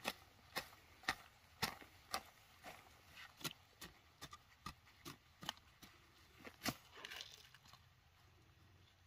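A hand hoe chopping into soft earth and ferns, short sharp strokes about two a second, breaking up the soil; the strokes stop about seven seconds in.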